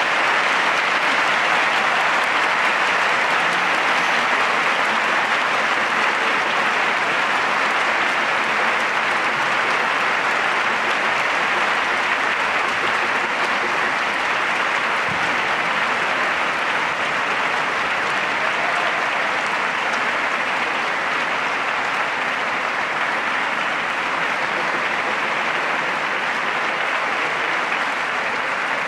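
Concert hall audience applauding steadily, easing off slightly toward the end.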